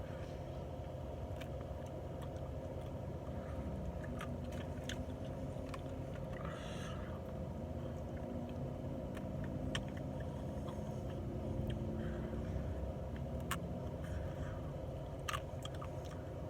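Close-up biting and chewing of crispy glazed chicken wings, with scattered short crunches and clicks, over a steady low hum.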